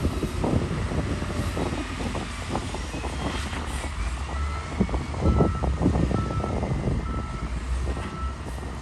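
Heavy earthmoving machinery running with a steady low diesel rumble and a lot of clanking and knocking of soil and rocks. From about halfway through, a reversing alarm beeps about one and a half times a second.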